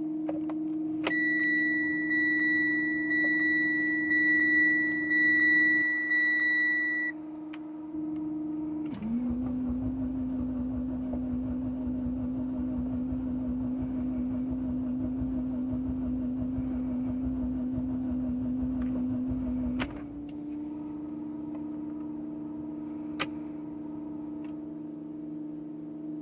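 Mitsubishi Lancer Evolution X engine being cranked by its starter for about eleven seconds after stalling, a long crank typical of a hard start. Before the crank there is a steady hum, with a steady high warning beep lasting about six seconds.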